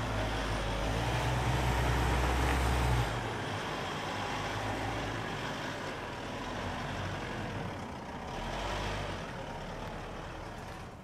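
Mitsubishi Pajero Sport's engine pulling under load as the SUV crawls over diagonal off-road bumps with its rear differential locked and little wheelspin. A deep rumble is strongest for the first three seconds, then eases to a lower, uneven running sound.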